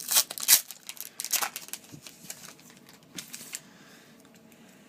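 Trading-card pack wrapper crinkling and cards rustling as the freshly cut pack is opened and the cards slid out: a quick flurry of crackles and rustles that dies away about three and a half seconds in.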